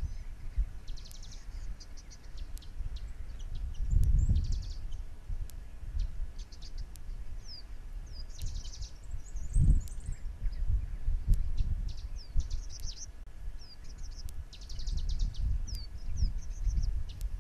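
Small birds chirping repeatedly: quick high chirps, short down-slurred notes and rattling trills. Beneath them runs a low, uneven rumble that swells about four seconds in and again near ten seconds.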